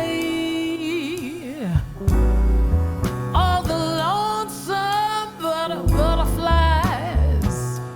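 Jazz ballad played live: a woman's voice sings long, gliding notes with vibrato over piano, guitar, bass and drums.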